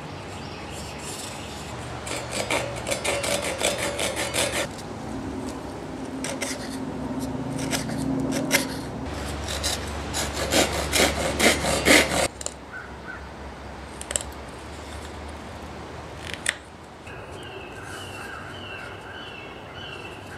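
Fine-toothed hand saw cutting shallow kerfs around a wooden knife-sheath blank, in three runs of quick back-and-forth strokes over the first twelve seconds.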